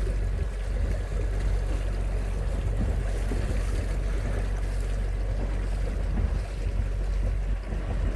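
Steady low rumble of a moving vehicle, with rough wind noise over it.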